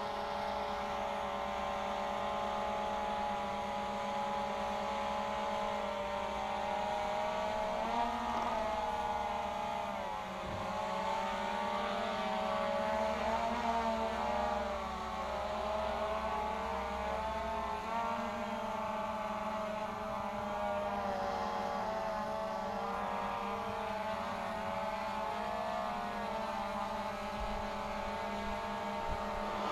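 DJI Phantom 2 Vision Plus quadcopter's four brushless motors and propellers humming in flight. The pitch wavers up and down continuously as the motors adjust their speed.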